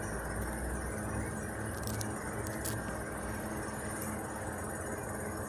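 Steady low background hum, with a few faint clicks about two seconds in.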